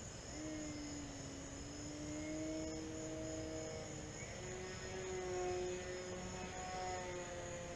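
Electric motor and propeller of an E-flite Night Visionaire RC plane flying overhead. It gives a steady hum whose pitch shifts up and down with throttle. Insects chirp steadily in a high, pulsing background.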